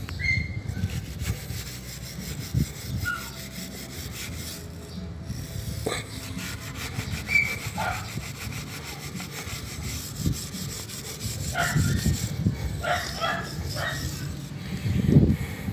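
Steel wire brush scrubbing rust off a motorcycle drive chain wet with gasoline: a fast, steady run of rasping strokes.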